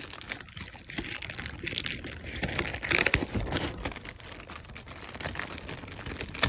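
Packaging being handled and unpacked, crinkling and rustling with irregular crackles that are busiest about three seconds in.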